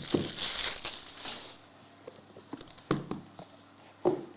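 Packaging crinkling and rustling as a trading-card box is opened. It fades after about a second and a half into light taps and clicks of the cards being handled.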